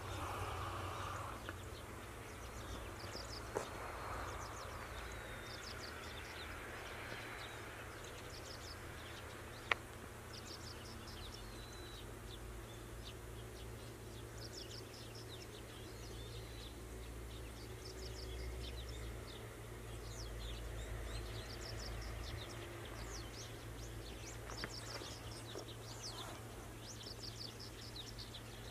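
Small birds calling with many short, repeated chirps over a steady low hum of outdoor background noise, with one sharp click about ten seconds in.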